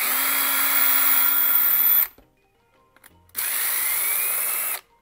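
Cordless drill boring a pilot hole into a wooden dowel, run in two bursts: about two seconds, a pause of over a second, then about a second and a half. The motor's whine rises in pitch during the second burst.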